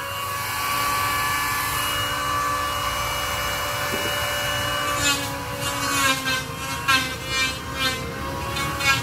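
A power tool running steadily against a wooden plank for about five seconds, then stopping as background music with a beat comes to the fore.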